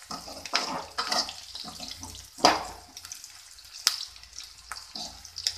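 Sliced onions sizzling in hot oil in a steel kadai, stirred with a perforated metal skimmer that scrapes and clinks irregularly against the pan, the loudest scrape about two and a half seconds in. The onions are being fried until golden.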